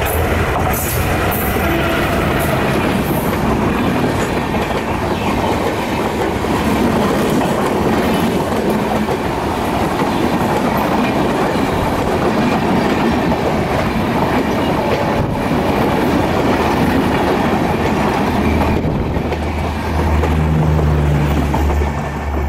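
Express train of LHB coaches hauled by an ALCO WDM-3A diesel locomotive passing close at speed: a loud steady rush of coach and wheel noise, with wheels clattering over the rail joints. Near the end a steady low hum joins in.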